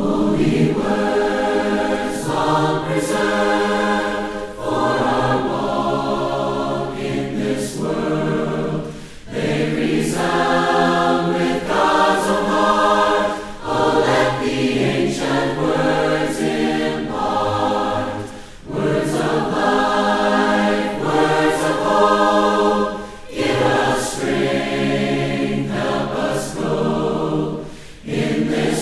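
Group of voices singing a hymn a cappella, in phrases of a few seconds with short breaks for breath between them; the singing starts suddenly out of silence.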